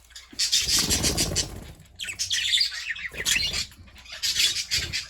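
Budgerigars chattering and chirping in a busy, overlapping twitter that comes in several bursts.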